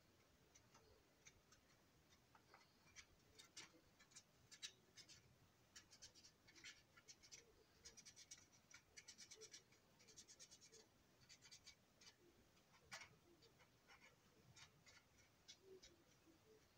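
Faint, irregular scratching strokes and small clicks of a colouring tool being worked over the plastic panels of a box car.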